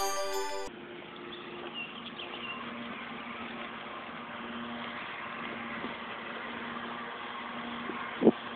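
Glockenspiel-like mallet music that cuts off abruptly under a second in, followed by outdoor ambience with a steady low hum and a few faint bird chirps. A short loud thump comes near the end.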